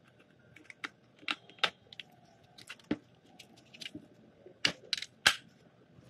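Light clicks and taps of a triangular sanding pad being fitted onto the clamp of a WORKPRO oscillating multitool's head, hard plastic and metal knocking together, with three sharper clicks close together about five seconds in. The tool is not running.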